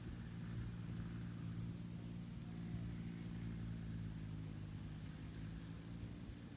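A steady low hum from a running engine, with insects trilling faintly and high in the background.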